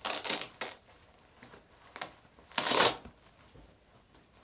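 Rustling and brushing of synthetic sports clothing handled right against the microphone, in several short bursts, the loudest about two and a half seconds in.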